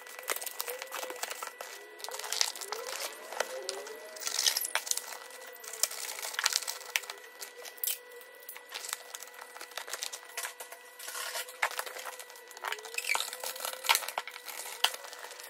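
Corrugated cardboard being handled and folded around a boxed pistol: rustling, creasing and scraping of the cardboard with many small taps and clicks.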